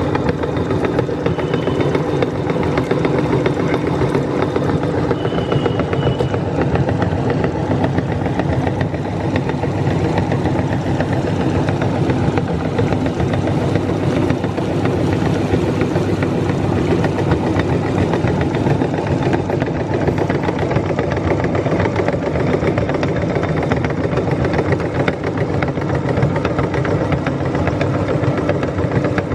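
Electric meat grinder running steadily under load, its motor humming with a dense, continuous grinding rattle from the material being fed through.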